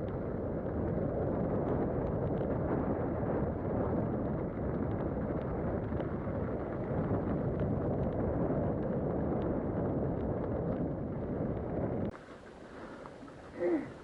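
Wind rushing over the microphone of a moving rider, a steady rough noise with light scattered rattling clicks. It cuts off abruptly about 12 seconds in, and a short pitched call is heard near the end.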